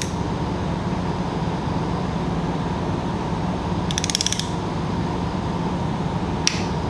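Torque wrench ratchet clicking in a quick run about four seconds in as a cylinder head bolt is tightened to 22 foot-pounds in the first step of the torque sequence, with a single sharper click near the end. A steady low hum runs underneath.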